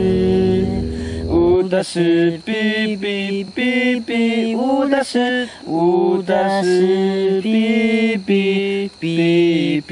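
Chant-like singing in held melodic notes, each lasting half a second to a second with short breaks between. A low accompaniment under the first second and a half stops abruptly.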